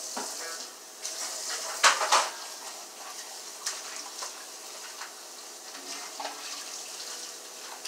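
Kitchen clatter of dishes and utensils knocking together, loudest in a quick cluster about two seconds in, over a steady hiss.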